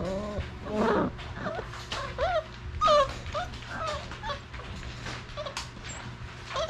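Basset hound puppies whimpering: a string of short, high, arching whines and squeaks, coming every half second or so.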